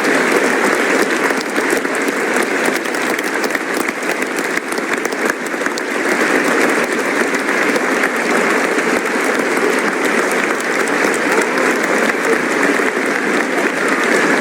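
Studio audience applauding steadily, a dense continuous clapping that neither builds nor fades.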